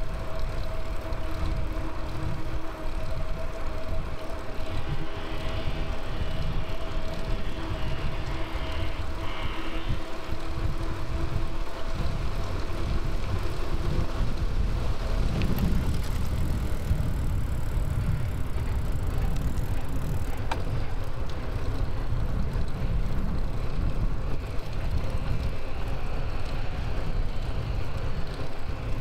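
Wind buffeting the microphone and road noise on a bicycle ride, a dense rumble that rises and falls. A steady hum runs underneath for roughly the first third, then fades.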